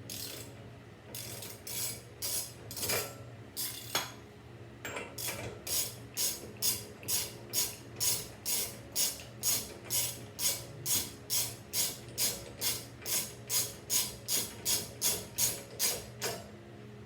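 Socket ratchet worked back and forth on a nut, its pawl clicking on each swing. A few uneven strokes come first, then a steady run of about three strokes a second that stops shortly before the end.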